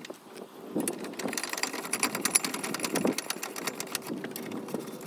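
Ratchet wrench clicking rapidly as a caliper bracket bolt is run in, with a few metal knocks against the brake bracket.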